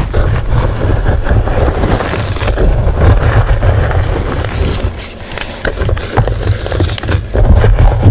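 Gym chalk crushed and crumbled right at the microphone: dense crunching and crackling over a heavy low rumble, easing off briefly about five seconds in.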